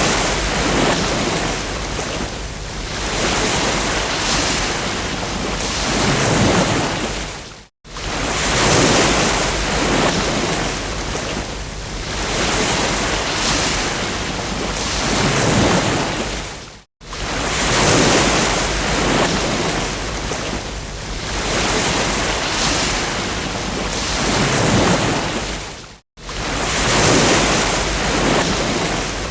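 Ocean waves breaking on a beach, the surf swelling and falling back every few seconds. The sound cuts out for an instant three times, about nine seconds apart.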